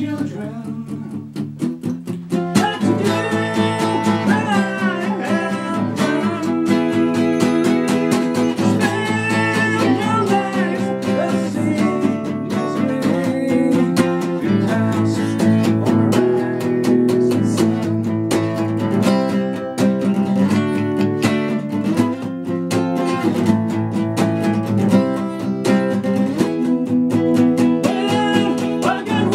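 An acoustic guitar being strummed and picked, with a man's voice singing along. The playing gets louder about two and a half seconds in.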